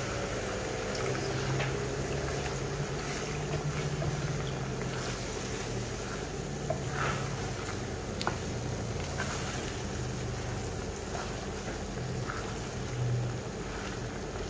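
Chicken in chili paste and thick coconut milk cooking in a stainless wok, heard as a steady low rumble and hiss. A wooden spatula stirring it gives a few faint light scrapes and taps against the metal.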